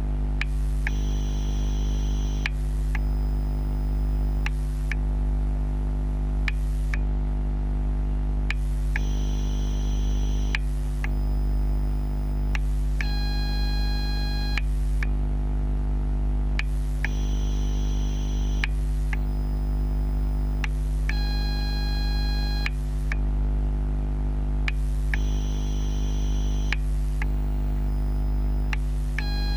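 Electrical noise from an LCD Charger TGX12 NiMH battery charger picked up through contact microphones as it charges a row of AA cells: a steady low hum and buzz, a faint tick about every two seconds, and short high-pitched whines that come and go every few seconds in a repeating cycle.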